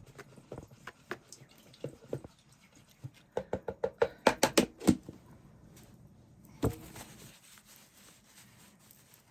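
A paintbrush being rinsed and wiped: small water sounds, scattered clicks and a quick run of sharp taps, then one louder knock about two-thirds of the way through.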